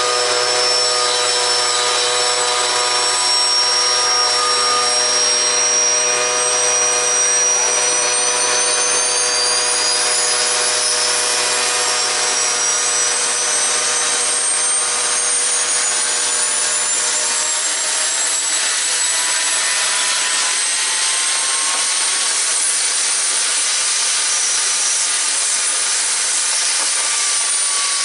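Turbocharger on a wood-fired barrel stove spinning, a high whistling whine that climbs slowly in pitch over a steady rush of air. A lower hum stops a little over halfway through.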